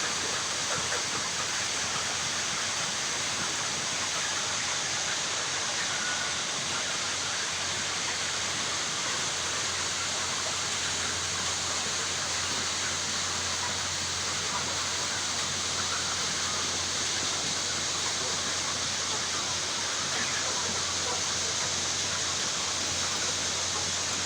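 Steady dense hiss of a poultry house full of chickens, with a few faint peeps and a low hum underneath.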